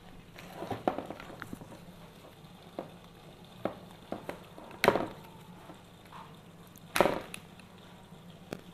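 Plastic toy race-track strips and connectors being handled and pushed together: scattered light clicks and knocks, with two louder plastic knocks about five and seven seconds in.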